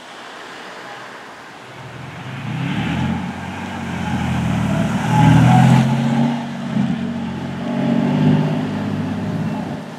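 Emergency vehicle engine running and accelerating, its low engine note building to a peak about halfway through, easing, then swelling again near the end.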